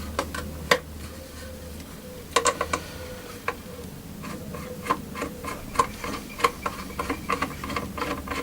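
Light, irregular clicks and taps of small hand work fitting a knob to a drawer. They come in a cluster, then a quicker run of several a second near the end.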